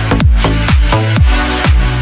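Electronic dance music in a house style from a DJ set: a steady four-on-the-floor kick drum, about two beats a second, under held synth bass and chords.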